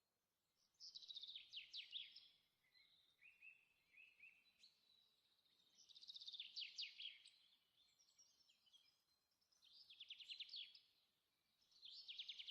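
A songbird singing faint, repeated phrases, each a quick trill of rapid falling notes, with softer chirps between them; about four phrases a few seconds apart.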